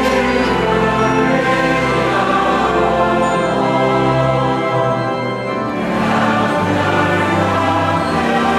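A church congregation and choir sing a Faroese hymn, carried by instrumental accompaniment in long held chords. About five and a half seconds in, one line's chord dies back and the next line begins on a new bass note.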